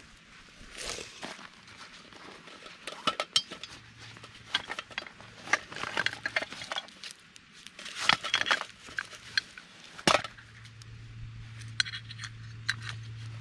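Hands handling small camp gear: a canvas pouch rustling, wax paper crinkling, and small metal tins clinking as their lids are twisted and pulled off, with one sharp click about ten seconds in.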